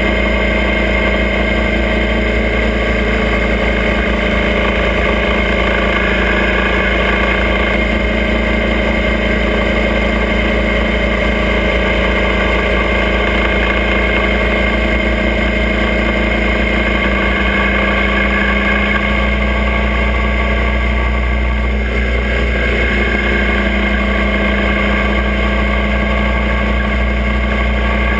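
Motorcycle engine of a sidecar outfit running steadily under way at road speed. Its note shifts slightly about two-thirds of the way through.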